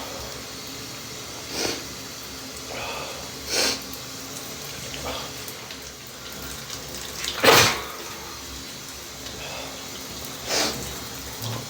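A man sneezing four times under a running shower, the loudest sneeze just past halfway. The shower's water runs as a steady hiss underneath.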